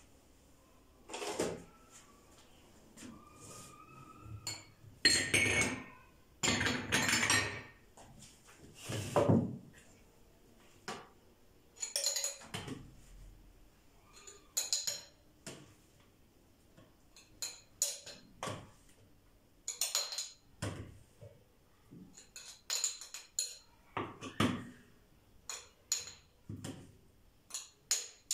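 A spoon clinking and scraping against a glass bowl and a small jar while a green herb-and-garlic fish marinade is spooned into the jar. The knocks and clinks are irregular, with a few longer scrapes.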